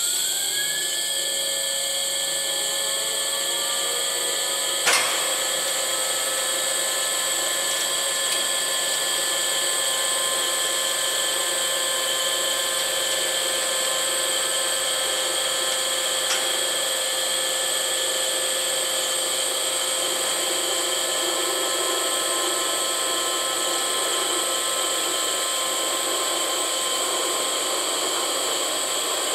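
3-tonne welding positioner's electric drive motor and gearbox running as the table tilts: a steady high-pitched whine that rises in pitch over the first second or two as the motor comes up to speed, then holds level, with a single click about five seconds in.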